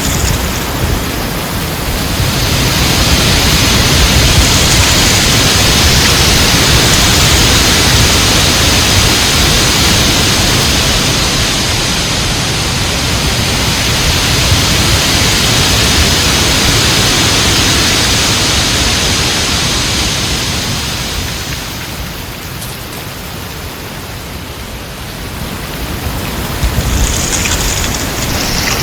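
Heavy wind blowing as a dense, steady rush. It swells early on and holds, eases off a little about three-quarters of the way through, then builds again.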